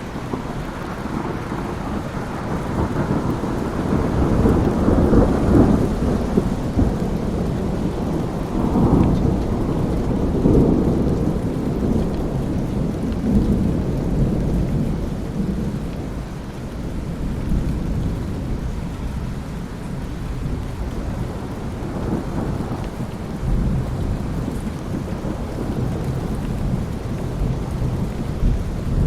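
Thunderstorm: heavy steady rain with rolling thunder rumbles, the strongest swelling from about four to eleven seconds in, with weaker rumbles after.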